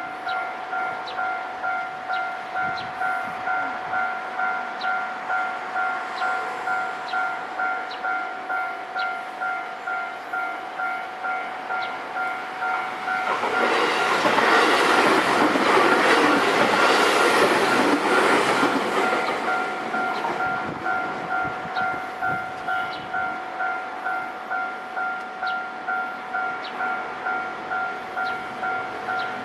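Japanese railway level-crossing alarm ringing a steady, repeating clang at about two strokes a second. From about 13 to 20 seconds in, a JR Osaka Loop Line train passes through the crossing, and the rush of its wheels and cars is louder than the bell. The bell keeps ringing after the train has gone, the crossing staying closed.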